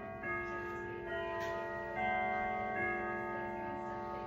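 Grandfather clock chiming, about four bell notes of a melody struck a little under a second apart, each ringing on into the next, with the pendulum ticking underneath. It is the chime that leads into the clock striking twelve.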